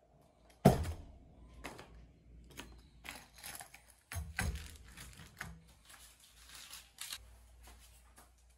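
Paint roller covers being handled and fitted onto roller frames. There is a sharp knock about a second in, another near the middle, and a run of lighter clicks and rustles between them.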